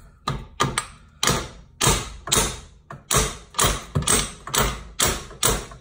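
Repeated hammer blows, about two a second, of one hammer striking a second hammer held against the golf cart's steering knuckle: the two-hammer trick to shock a tapered tie rod end loose. Each blow is a sharp metal-on-metal knock with a short ring.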